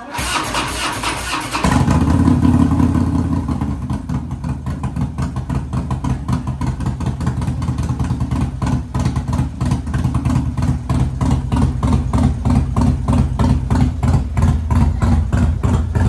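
Custom bagger motorcycle's V-twin engine being started: the electric starter cranks for about a second and a half, the engine catches just under two seconds in, then it idles loud and steady with an even pulse.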